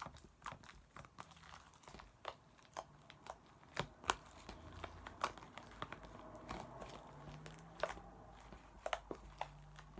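Slime being handled and squished by hand, making irregular sticky clicks and crackles a few times a second.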